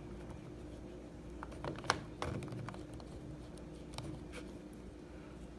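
A test swab rubbing over the rubber buttons of a TV remote control: faint scratching with a few small clicks, the clearest about two seconds in and again around four seconds.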